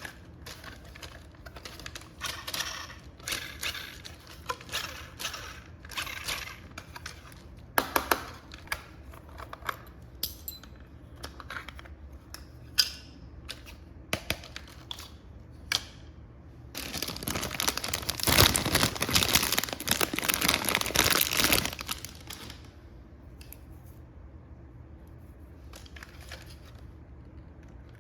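Toy packaging being handled: scattered clicks and crinkling of plastic and cardboard, with a loud stretch of rustling and tearing about two-thirds of the way through.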